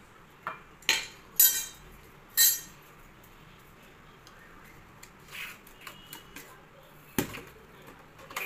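A metal ladle clanking on a stone floor: four sharp metallic clanks in the first two and a half seconds, the loudest two with a ringing tail. Softer small knocks follow, and one sharp knock comes about seven seconds in.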